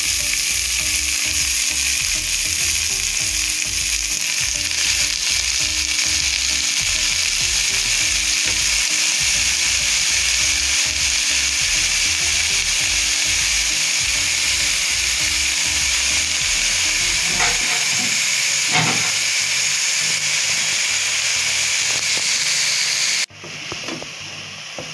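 Chopped spinach sizzling loudly in hot oil in a metal pot, a steady frying hiss. The sizzle drops off abruptly about a second and a half before the end.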